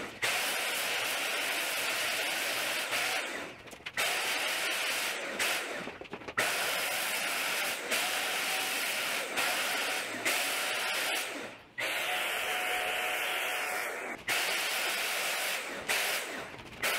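Handheld electric HVLP paint sprayer running and spraying paint: a steady turbine whir with a rushing hiss, in several long stretches that cut off and restart abruptly.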